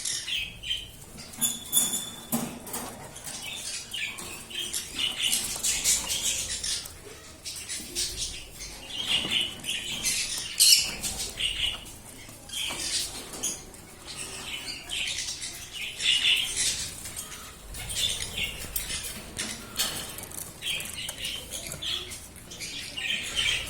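Pet parrots moving about, with wing flapping, scratchy rustling and clicks, and short high calls scattered throughout.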